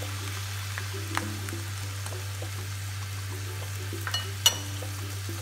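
Shrimp and broccoli sizzling in a stainless steel frying pan as a spoon stirs them, with a small click about a second in and a sharp ringing clink of the metal spoon against the pan about four and a half seconds in. Soft background music plays underneath.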